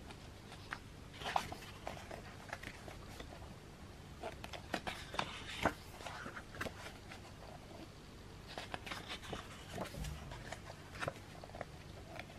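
Glossy pages of a photobook being turned and handled, making soft paper rustles and scattered light page-flap clicks at an irregular pace.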